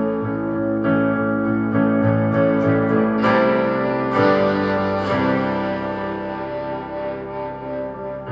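Rock band playing a slow song intro: electric guitar through effects over sustained keyboard chords, with new chords and notes struck about once a second, no vocals yet.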